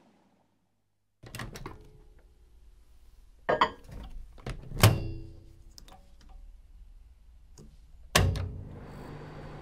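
A run of separate knocks and thuds, some with a brief ring after them, the loudest about five seconds in, then a steady low hum with hiss from about nine seconds.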